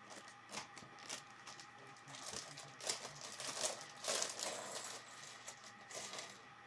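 Plastic building bricks being handled: scattered clicks and light clatter, with a stretch of plastic rustling in the middle.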